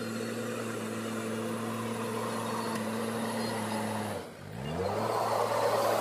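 Diesel engine of a JCB backhoe loader running steadily while it pushes earth with its front bucket. About four seconds in the sound dips briefly, then the engine revs up and runs louder as the loaded bucket is raised.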